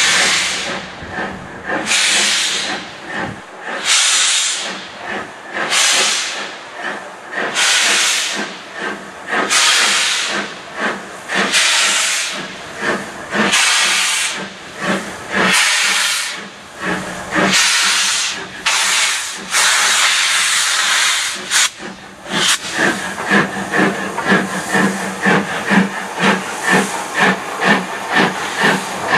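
Midland Railway 3835 Class (4F) 0-6-0 steam locomotive working a goods train, its exhaust beating heavily with loud steam hiss at about one beat a second. About three quarters of the way through, the beats come quicker and sharper, two or three a second, as it passes close.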